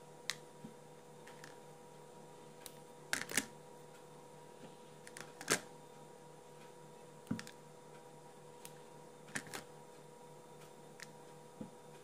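Irregular light taps and clicks as cherry tomatoes are pulled from the vine and set down on a wooden cutting board, with a louder pair about three seconds in and another in the middle. A faint steady electrical hum runs underneath.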